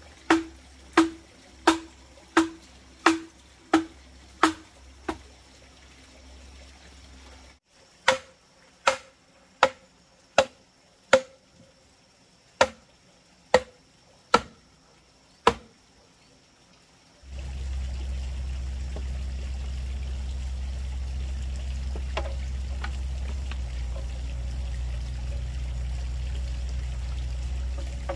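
A hammer driving a bamboo post into the ground: a steady run of heavy strikes, about one and a half a second, then a short break and another run. About two-thirds of the way through the strikes stop and a steady low rushing noise takes over.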